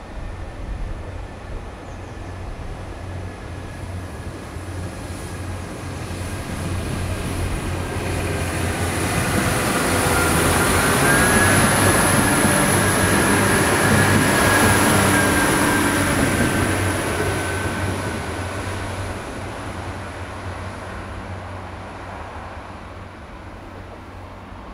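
Irish Rail 22000 class InterCity Railcar diesel multiple unit passing through a station: its underfloor diesel engines and wheels on the rails grow louder as it approaches, are loudest about halfway through as it goes by, and fade as it pulls away. A high whine rides over the running sound while it passes.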